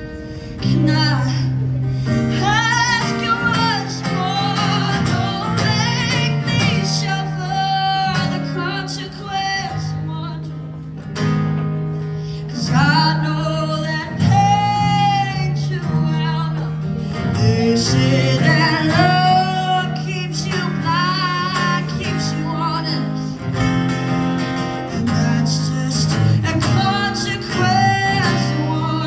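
A woman singing live into a microphone while accompanying herself on acoustic guitar, a solo song with held, wavering vocal notes over changing guitar chords.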